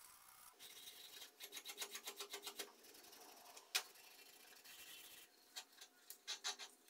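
An abrasive pad scrubbing back and forth along the steel beam of a 9-inch Mauser vernier caliper, in quick even strokes, with a single sharp click about the middle.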